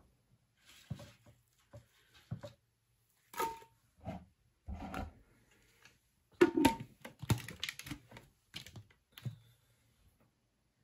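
Chunks of raw apple dropped one after another into a glass blender jar on top of pear pieces: a string of soft knocks and thuds at irregular intervals, busiest a little past the middle.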